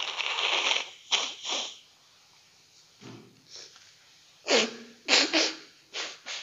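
A man blowing his nose into a tissue: one long blow at the start, two short ones about a second in, and a quick run of short blows in the last two seconds.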